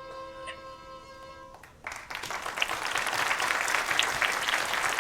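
A student string quartet holds its final chord, which stops about one and a half seconds in. An audience of young schoolchildren then starts clapping, and the applause is louder than the music.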